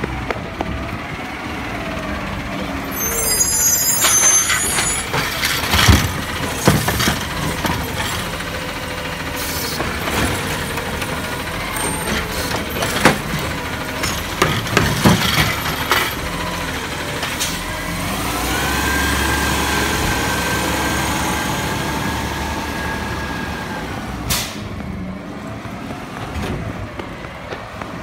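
Automated side-loader garbage truck running as its hydraulic arm lifts a compost cart and empties it into the hopper, the cart banging several times. The engine then revs up to a steady whine for several seconds, and a short air hiss comes near the end.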